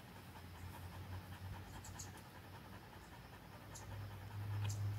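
Yellow Labrador retriever panting softly, with a low steady hum in the background that swells about four seconds in.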